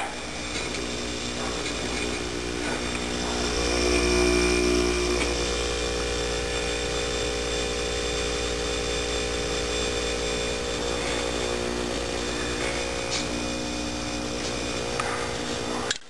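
Norcold (Engel) swing-motor linear compressor humming steadily on 60 Hz mains power, a little louder about four seconds in. It runs but the unit does not cool, which the owner takes for a loss of its R-12 refrigerant or a blockage in the system.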